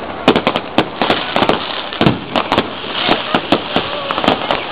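Fireworks display: a dense, irregular barrage of shell bursts, several bangs a second, over a continuous crackling hiss.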